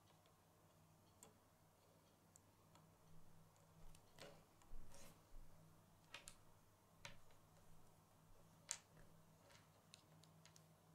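Faint, scattered clicks and taps of small plastic Lego bricks being handled, pressed together and set down on a wooden tabletop, the sharpest click about two-thirds of the way through, over a faint steady low hum.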